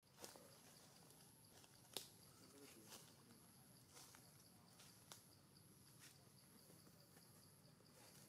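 Near silence: a faint, high insect drone that breaks off and restarts every second or so, with soft scattered clicks and taps.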